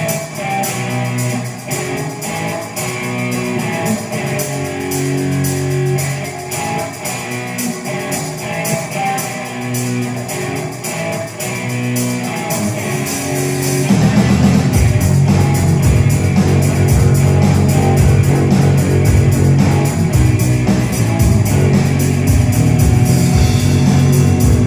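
A small rock band playing live: electric guitar and bass over a drum kit keeping a steady beat. About halfway through, the low end fills out and the music gets louder.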